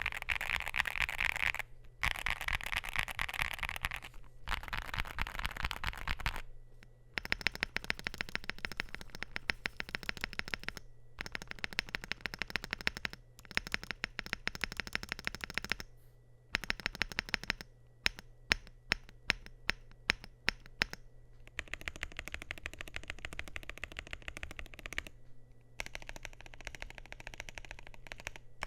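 Typing on a Luminkey65 gasket-mount mechanical keyboard with Gateron Sylva switches, a polycarbonate plate and PBT Cherry-profile keycaps: runs of fast keystrokes with short pauses between them. About two-thirds of the way through, the typing slows to separate, louder key presses, then returns to fast typing.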